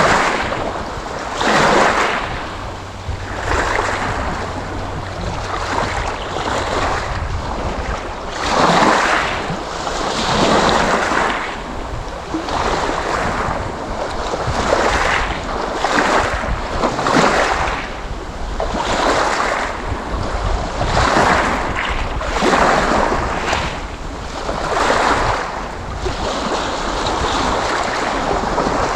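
Sea waves washing and surging in repeated swells every second or two, with a low rumble of wind underneath.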